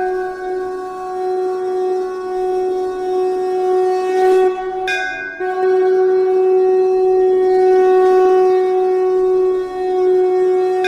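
A single steady note from a blown wind instrument, held for about five seconds. It breaks off briefly, then is sounded again and held for several more seconds.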